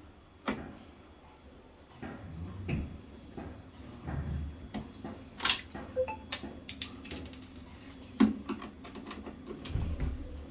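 Irregular clicks and knocks of hard objects being handled, the loudest a sharp knock about eight seconds in.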